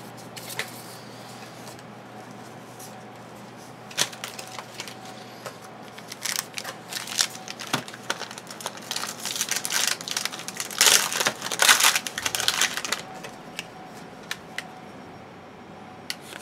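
2012 Score football trading cards being handled: cards flicked, slid and dropped onto piles on a table, a run of quick clicks and rustles that grows busiest and loudest about eleven to twelve seconds in.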